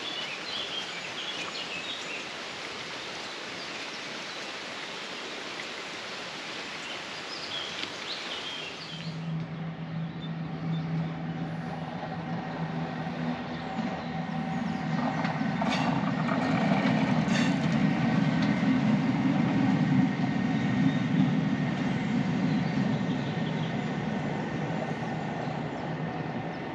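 Outdoor ambience with faint chirps, then a passing vehicle: a steady low hum with a higher whine that grows louder, peaks and eases off, with two sharp clicks at its loudest.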